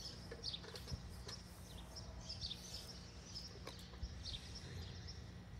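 Faint outdoor ambience: small birds chirping now and then over a low, steady background rumble, with a few faint clicks.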